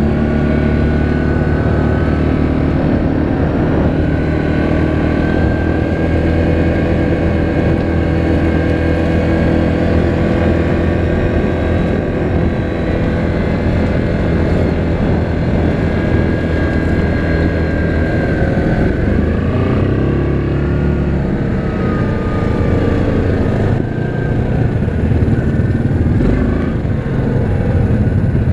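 2019 Yamaha Grizzly 700 EPS ATV's single-cylinder four-stroke engine running steadily under way on a trail. Its engine speed rises and falls a few times in the last third.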